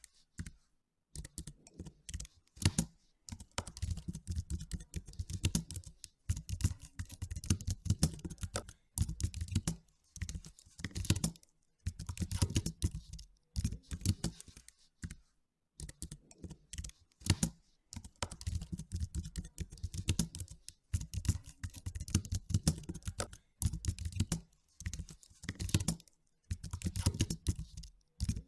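Typing on a computer keyboard: quick runs of key clicks lasting a few seconds, broken by short pauses.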